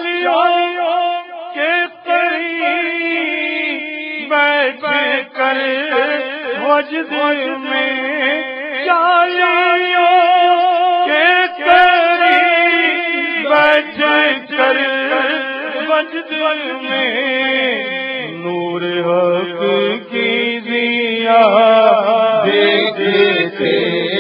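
Naat, devotional praise of the Prophet, sung by voice alone in long held, wavering notes.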